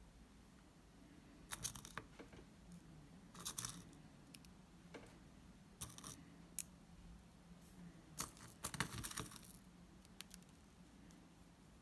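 Sugar sprinkles rattling and clicking in small plastic caps as fingers pick them out: a few brief bursts, the longest cluster about eight to nine seconds in, over a faint steady hum.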